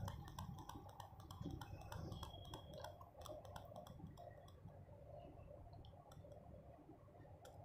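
Faint, sparse crackling of sliced onions frying in oil, a scatter of small clicks that thins out over the last few seconds.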